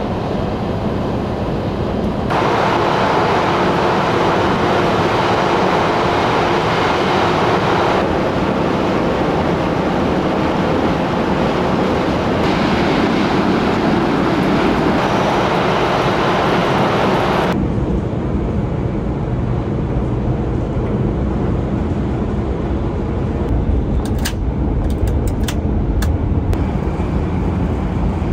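Steady running noise of a Shinkansen bullet train heard from inside the car, changing abruptly several times and turning to a deeper rumble about two-thirds of the way through, with a few light clicks near the end.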